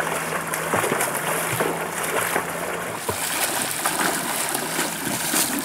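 Repeated splashing and sloshing of people thrashing through river water while grabbing for fish by hand, over the steady rush of the flowing river.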